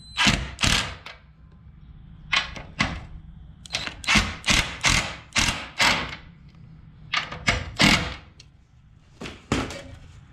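An irregular series of about sixteen sharp knocks and clunks, in small clusters, from tools and metal parts being handled while a front-mount intercooler is bolted in place.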